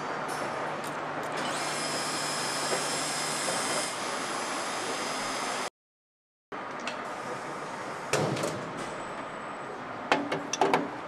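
Engine assembly-line noise: a steady machine hum with a high hiss, broken by under a second of silence past the middle. Then a thump and several quick metal clicks and clanks near the end as an aluminium cylinder head is handled in a work fixture.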